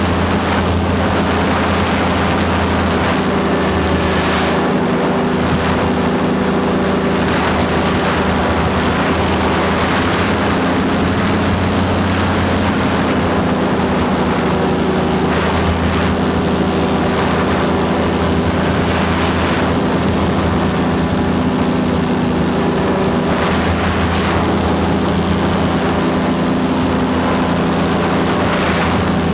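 Paramotor engine and propeller running at a steady speed in flight, with wind rushing over the microphone.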